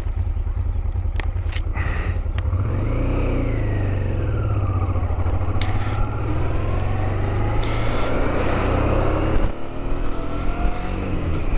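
Honda Transalp motorcycle engine pulling away and accelerating, its pitch rising from about two seconds in and dropping briefly near the end, under a steady low wind rumble on the helmet-mounted microphone.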